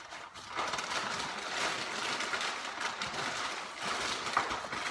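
Rustling, crinkling handling noise from things being handled and packed. It starts about half a second in and runs until just before the end.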